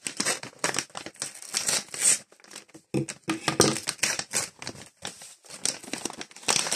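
Packaging of a Match Attax Mega Multi Pack crinkling and tearing as hands pull hard at it, in irregular rustling bursts.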